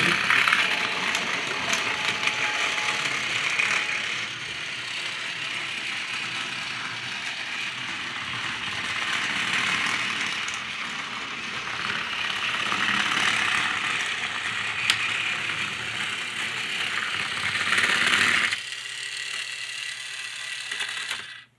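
Motor and gears of a battery-powered Tomy/Trackmaster Toby toy engine running as it pulls coaches along plastic track. The sound rises and falls in loudness and stops abruptly near the end.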